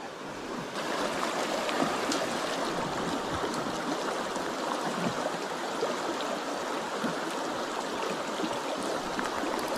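Trout stream water flowing, a steady continuous rush.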